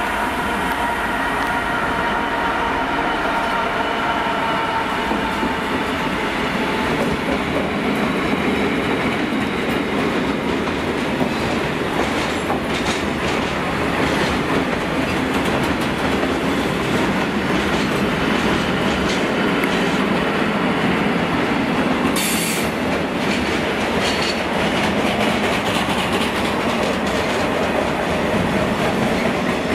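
Long freight train passing close by behind a Class 66 diesel locomotive, its covered steel-coil wagons and tank-container flats rolling past with a steady rumble and clickety-clack of wheels over rail joints. A high wheel whine fades out over the first several seconds.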